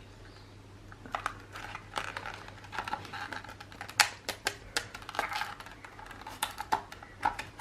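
Packaging of a Samsung M.2 SSD being handled: irregular light clicks, taps and rustling of plastic and cardboard, starting about a second in.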